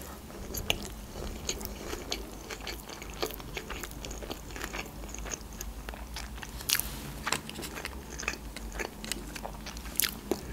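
Close-miked chewing of a crispy deep-fried sushi roll: irregular wet crunches and mouth clicks.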